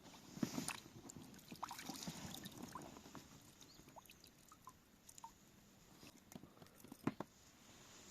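Light water splashing and scattered knocks in a small boat, busiest in the first three seconds, with a sharp single knock about seven seconds in.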